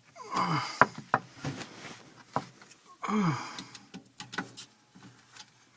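A person's effortful groaning exhales, twice, each falling in pitch, with a few sharp clicks of metal and plastic in between while working on sink fittings.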